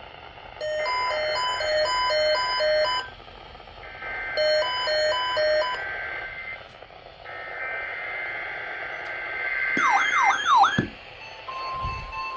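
NOAA Weather Radio SAME data header: three bursts of buzzing two-tone digital data with short gaps, with a pattern of alternating electronic beeps over the first two bursts and a quick warbling sweep at the end of the third. Near the end the steady warning alarm tone, around 1 kHz, starts.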